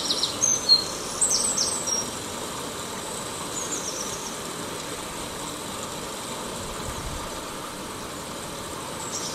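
Small birds chirping in short, high, quick notes over a steady outdoor hiss; the chirps come in a cluster in the first two seconds, again around four seconds in, and near the end.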